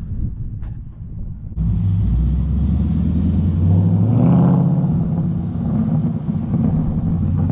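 Ford Mustang GT's 5.0 V8 running through a Flowmaster exhaust, with a low rumble; a little after the middle it revs up and settles back to idle.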